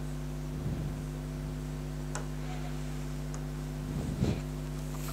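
Steady electrical mains hum, a low buzz with its overtones, broken by a few faint ticks.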